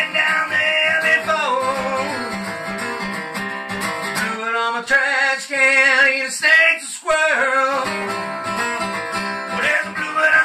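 A man singing, holding long wavering notes, over a strummed acoustic guitar.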